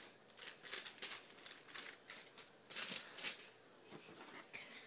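Paper receipt rustling and crinkling in short, irregular bursts as it is folded and handled.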